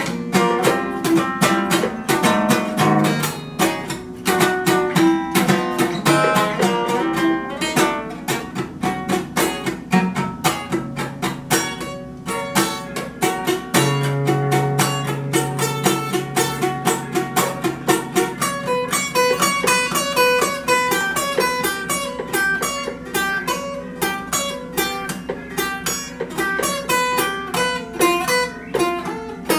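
Acoustic guitar played solo in a fast, even strummed and picked pattern, with the chord changing about halfway through.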